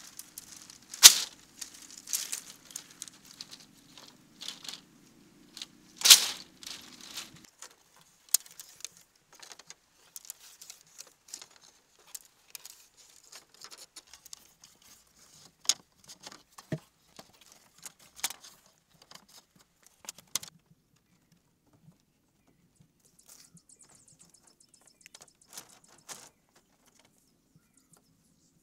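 Dry bamboo poles and split-bamboo slats knocking and clattering as they are handled and laid on a floor frame, with rustling and scraping in between. The two loudest knocks come about a second in and about six seconds in, and the clatter thins out after about twenty seconds.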